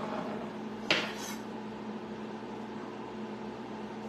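One clatter of kitchenware set down, a metal utensil or tray against a hard surface, about a second in, ringing briefly, over a steady low hum.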